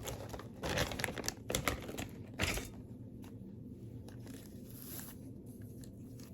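Rustling and crinkling from craft materials being handled, with a few sharp clicks and taps over the first couple of seconds, then quieter, fainter handling.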